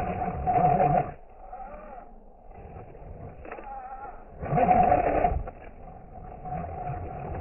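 RC 6x6 crawler's electric motor and gear drive whining in short bursts of throttle as it crawls over rocks under the weight of a second truck. Two main bursts of about a second each come, one at the start and one a little past halfway, with quieter running between.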